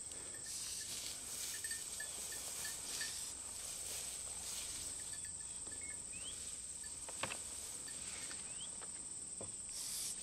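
Steady high-pitched trilling of insects in a late-summer meadow, with a soft knock about seven seconds in.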